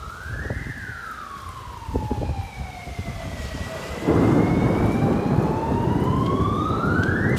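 An emergency-vehicle siren wailing, its pitch rising, sliding slowly down and climbing again. About four seconds in, a loud rushing noise sets in under it.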